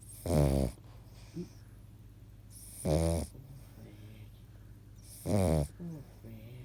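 Snoring in sleep: three loud, short snores about two and a half seconds apart, each on an in-breath, with quiet breathing between.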